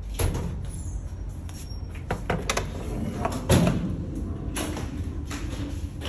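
Scattered knocks and bumps, the loudest about three and a half seconds in, over a steady low hum typical of a ship's engines.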